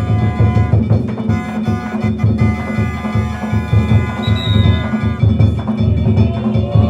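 Danjiri festival music: fast, rhythmic drumming with steady held higher tones above it.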